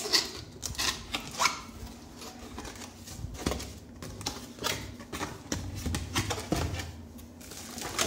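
Cardboard box handled by hand: the inner box is slid out of its printed sleeve and its flaps opened, giving irregular scrapes, taps and rustles.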